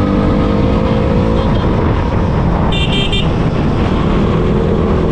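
Motorcycle running along a road with heavy wind noise on the microphone. A high-pitched horn gives a few quick toots about three seconds in.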